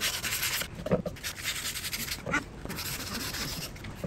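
Sandpaper rubbed by hand over a worn wooden cutting board in long scratchy strokes, fading toward the end. A dog whines briefly twice between the strokes.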